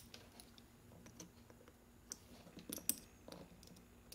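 Light clicks and taps as a precision screwdriver and its small bits are handled, with a cluster of sharper clicks between about two and three and a half seconds in.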